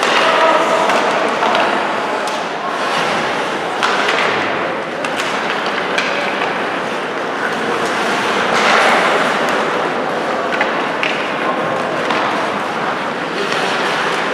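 Ice hockey play on a rink: steady scraping of skates on the ice, with a few sharp clacks of sticks and puck and occasional thuds.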